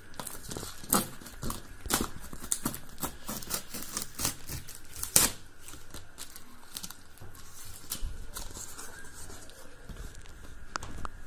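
Clear plastic wrapping being peeled and torn off a cardboard box, crackling in a quick run of sharp crinkles for about five seconds. Then softer rustling as the box's cardboard flaps are opened, with a few sharp clicks near the end.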